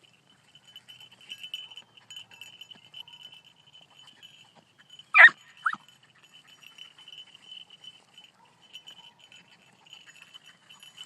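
Beagle puppy giving two short, high yelps about half a second apart, the first louder, as it trails a rabbit. A faint, steady high-pitched tone runs underneath.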